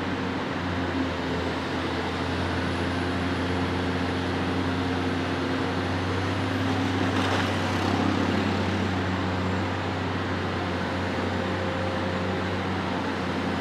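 Heavy construction rig's diesel engine running at a steady speed, with a short louder rush of noise about seven seconds in.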